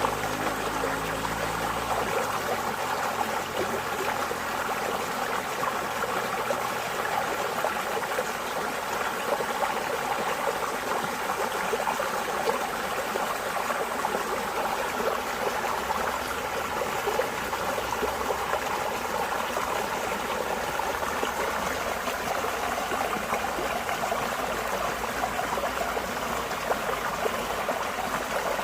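Running water flowing steadily, an even rushing and splashing with no breaks.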